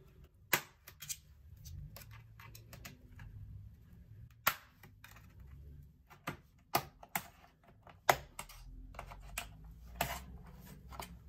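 Plastic base cover of an HP Envy x360 laptop being prised off, its clips snapping loose one at a time in sharp, irregular clicks.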